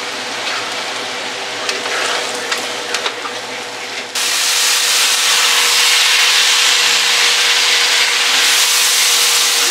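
Sliced nopales and onion frying in a skillet, a spatula scraping and turning them with small clicks against the pan. About four seconds in, a much louder, steady sizzle takes over as red chile sauce goes into the hot pan.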